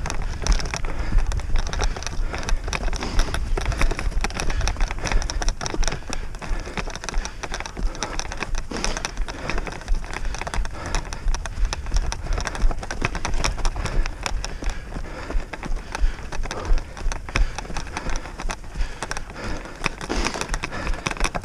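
Wheels of a dog-drawn rig rolling fast over a rough, frosty grass track: a dense, irregular crackling and rattling that runs on without a break, over a low rumble of wind on the microphone.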